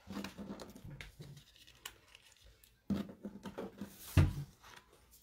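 Clicking and rattling of beaded stretch bracelets handled in the hand, in two spells, with a sharper knock a little past four seconds.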